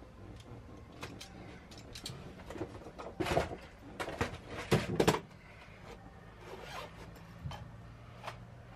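Irregular handling noise of tools and wiring parts: rustling with scattered knocks and clicks, the loudest about three and five seconds in. A faint steady low hum comes in near the end.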